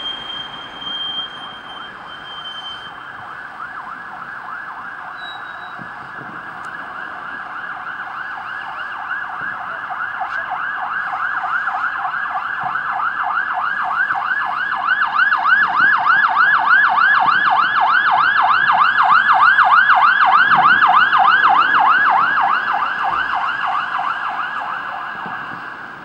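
Fire engine sirens on an emergency run, sounding a fast rising-and-falling yelp. They grow louder as the vehicles approach, are loudest about three-quarters of the way through, then fade as they pass.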